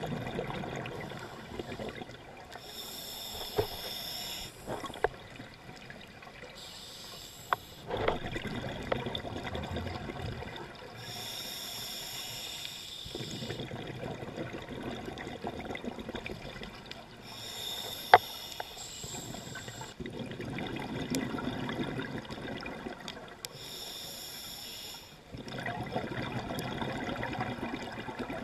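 Scuba regulator breathing underwater: a short hissing inhale every five or six seconds, each followed by a longer bubbling exhale. A few sharp clicks, the loudest about eighteen seconds in.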